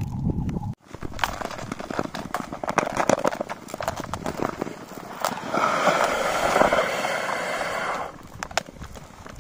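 Long-distance (Nordic tour) skates gliding and scraping over clear black ice, with many sharp clicks as pole tips and blades strike the ice. A longer, steady scrape of blade glide comes from about halfway through until near the end.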